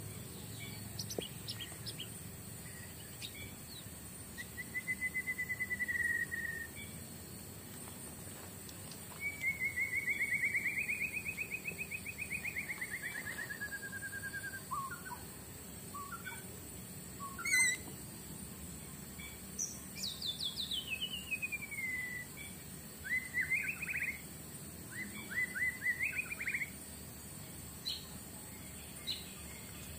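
Forest birds calling: a short warbled call, then a long wavering trill that sinks in pitch, later a whistle falling steeply, and a few choppy trilled notes. A steady high insect drone runs underneath, and there is one sharp snap just past halfway.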